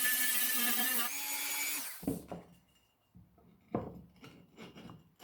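A small power tool cutting away wood to ease a tight fit, running steadily and stopping about two seconds in. Then a couple of hard wooden knocks and small taps.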